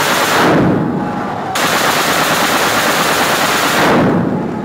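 Long bursts of automatic gunfire echoing in a concrete building: one burst ends about half a second in, and another runs from about a second and a half to four seconds in, each dying away in the echo.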